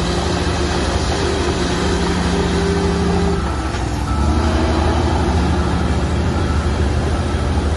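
Heavy diesel construction machinery engine running steadily. A little past the middle its note drops and a deeper, louder engine sound takes over.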